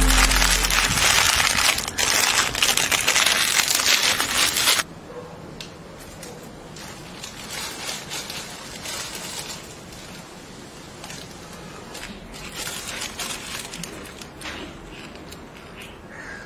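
A Wai Wai instant noodle packet is squeezed and crushed in the hands, the plastic crinkling loudly and the dry noodles cracking inside, for about five seconds with a short break near two seconds. It then drops to softer, scattered crackling.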